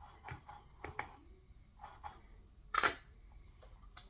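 Light clicks and handling noise of small parts and tools being worked by hand on headphone wiring, with one louder, sharper noise about three seconds in.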